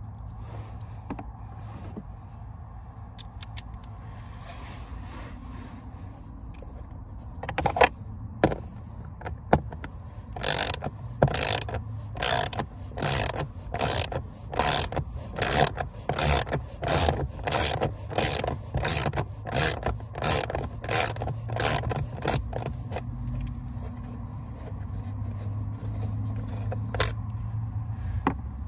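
Ratchet with an 8mm socket clicking in quick strokes, about two a second, for some thirteen seconds from about ten seconds in, as a blower motor mounting bolt is backed out.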